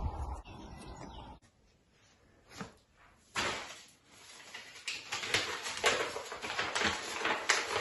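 Low wind-like rumble on the microphone for the first second or so, then a pause. From about three seconds in, a folded paper plane is handled and unfolded by hand, giving paper rustling and crinkling in quick irregular crackles.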